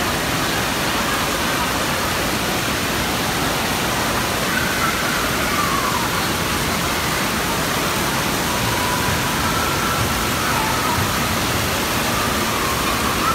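Steady rushing of water from the sprays and fountains of an indoor waterpark, with faint distant voices of children and other visitors mixed in.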